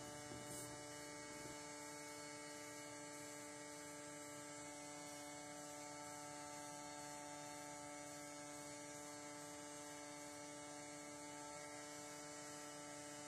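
Faint steady electrical hum: a few constant tones over a low hiss, unchanging throughout.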